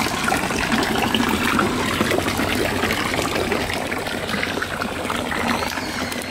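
Small garden fountain: thin jets of water spouting from a frog statue and a pipe, splashing and trickling steadily into a shallow pool, easing off a little near the end.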